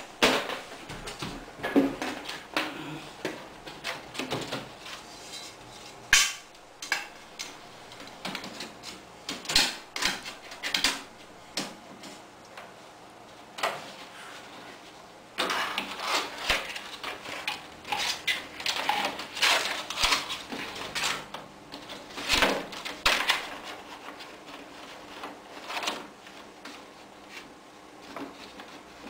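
Thin PVC ceiling tiles being flexed and pushed up into a suspended ceiling grid: irregular plastic clicks, crackles and clatter, busier in the second half.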